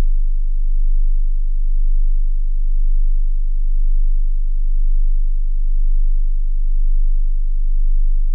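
Very low, pure sine test tone from a hearing test, held steady with a slow, even swell in loudness about once a second.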